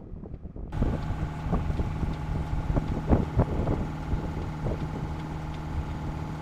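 Sailboat's auxiliary engine running steadily while motoring, with several knocks and thumps over it between about one and four seconds in. Wind on the microphone briefly at the very start.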